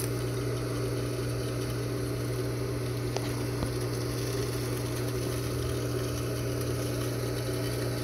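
Pool filter pump motor running with a steady electric hum and low drone, circulating water through the salt chlorinator.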